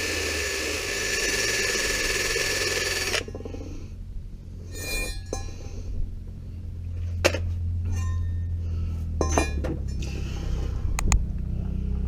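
A power tool runs for about three seconds and cuts off suddenly, followed by scattered metallic clinks and clicks of hand tools being handled, over a steady low hum.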